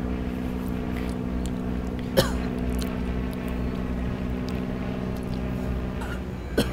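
Steady low droning hum with several held tones. A short, sudden sound with a falling pitch comes about two seconds in, and a faint click comes near the end.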